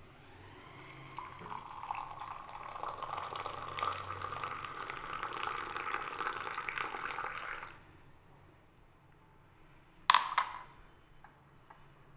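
Milky ginger tea poured in a long stream into a ceramic mug, a splashing pour that builds up and stops suddenly about eight seconds in. About two seconds later come two sharp knocks close together.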